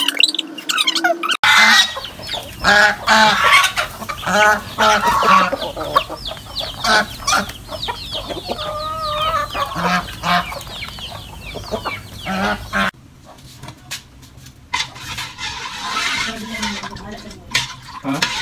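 Farmyard chickens clucking and calling all at once, with goose calls among them, as the flock feeds. It opens with a moment of liquid dripping from squeezed grated coconut and, about thirteen seconds in, gives way abruptly to quieter kitchen sound.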